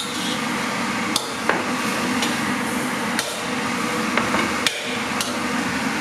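Fried-rice ingredients sizzling in a frying pan, with a metal spatula knocking sharply against the pan about seven times at irregular intervals as it stirs.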